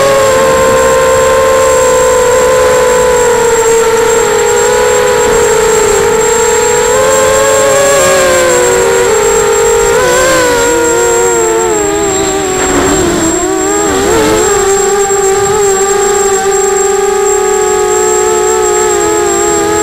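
Electric motors and propellers of an FPV model aircraft, heard close from its onboard camera: a loud whine whose pitch rises and falls with the throttle, wobbling and dipping a few times about two-thirds of the way through, with a thin high steady tone beneath it.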